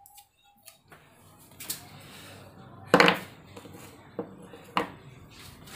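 Several short, sharp knocks and clacks of hard objects being handled on a wooden workbench, the loudest about three seconds in.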